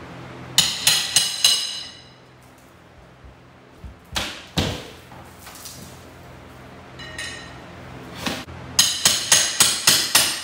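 Quick series of hammer blows with a metallic ring, working ceiling drywall loose: a run of about four strikes near the start, a few single knocks in the middle, and a faster run of about seven near the end.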